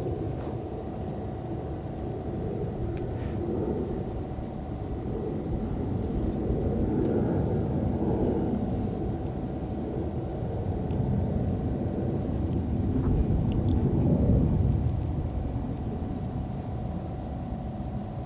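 Steady, shrill chorus of insects buzzing continuously in two high-pitched bands, over a low rumble.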